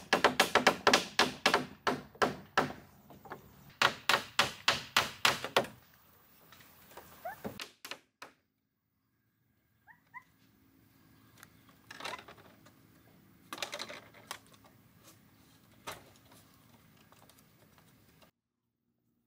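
Rapid, loud strikes of a hand tool on wood, about four or five a second, in two runs. Scattered quieter knocks follow.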